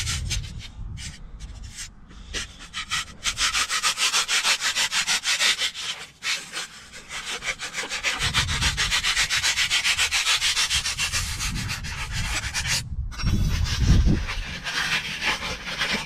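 A bare hacksaw blade, held in the hand, sawing back and forth through cured expanding filler foam in fast, even strokes, giving a rasping scrape. The cutting breaks off briefly a few times and starts again.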